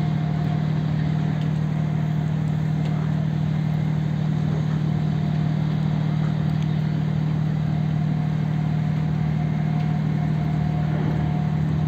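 An engine running steadily: a constant low drone with a faint, higher steady hum above it.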